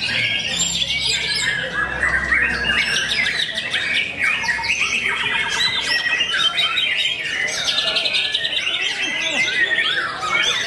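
White-rumped shamas singing in a songbird contest: a dense, unbroken stream of rapid, varied whistles, trills and harsh chattering notes, with songs overlapping.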